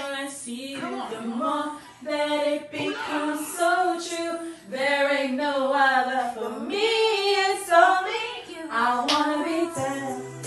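Women's voices singing a 90s R&B song, with long held notes that waver in pitch.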